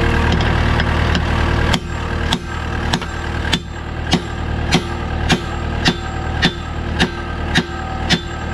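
A hammer striking the bent steel bumper bar of a CAT 259D3 track loader to straighten it after it was bent against a tree and began catching the door. The blows start about two seconds in and come in a steady run of about a dozen, roughly two a second, over an engine idling steadily.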